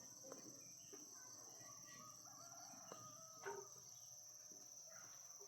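Faint rural ambience: steady high-pitched insect chirring with a few faint bird or chicken calls, and a soft click about three and a half seconds in.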